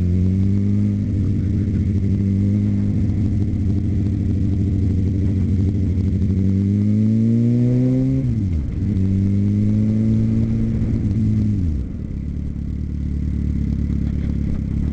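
Suzuki GSX-R750 inline-four motorcycle engine under way. It holds steady revs, climbs for a couple of seconds, dips sharply about eight seconds in and picks up again, then falls away near twelve seconds as the throttle is closed.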